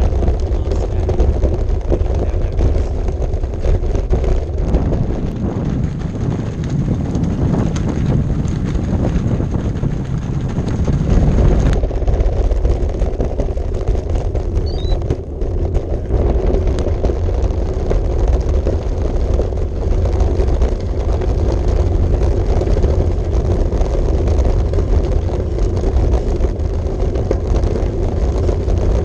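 Steady wind rushing over the microphone of a camera on a moving bicycle's handlebars, heaviest in the bass, with the bike rolling along underneath.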